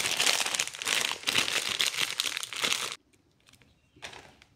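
Clear plastic bag crinkling loudly as a power cord is unwrapped and pulled out of it, stopping about three seconds in.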